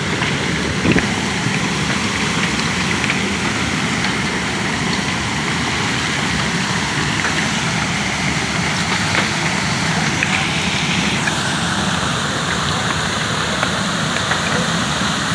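Burst underground water main gushing up as a geyser: a steady rush of spraying and falling water, with scattered ticks of gravel and rocks thrown up with it. About eleven seconds in, the spray turns hissier.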